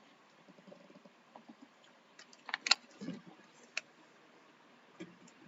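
Faint background noise with a few scattered soft clicks, the loudest about two and a half seconds in.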